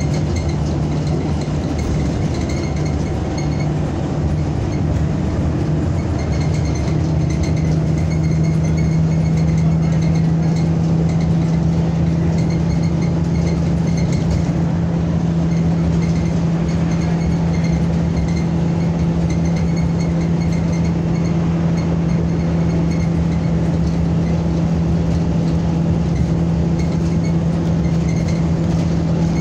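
Inside a NABI 45C-LFW transit bus on the move: a steady engine and road drone. A steady low hum comes up strongly about seven seconds in and holds.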